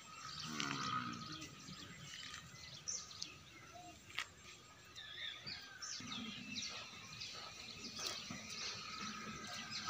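Small birds chirping and calling over outdoor background noise. A short low call comes about half a second in, and a single sharp click about four seconds in.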